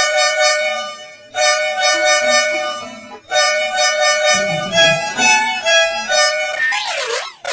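Musical bus horn tune in an edited sound-variation version: three long blasts of a held chord with short breaks between them, then a quick run of changing notes. About a second before the end it switches to a wobbling version whose pitch swoops up and down.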